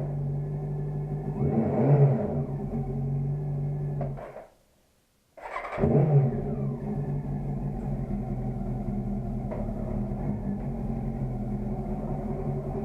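Motorcycle engine idling steadily, with a short throttle blip about two seconds in. Midway the sound cuts out completely for about a second, then returns with another brief rev and settles back to an even idle.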